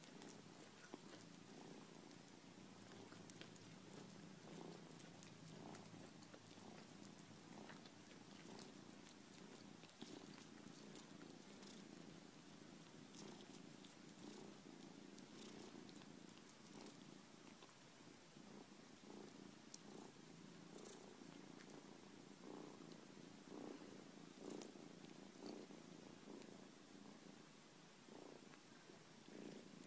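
A cat purring steadily and faintly while it gnaws kernels off a corn cob, with small scattered clicks from the chewing.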